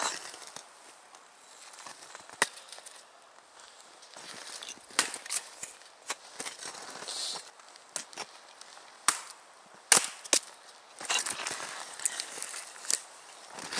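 Axe splitting firewood on a chopping block: a series of sharp, irregularly spaced wooden cracks and knocks, with split pieces knocking together as they are handled.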